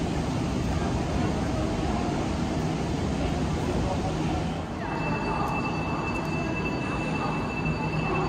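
Railway station noise: a steady rumble with crowd chatter. About halfway through this gives way to platform noise with a steady high-pitched whine as a high-speed train approaches the platform.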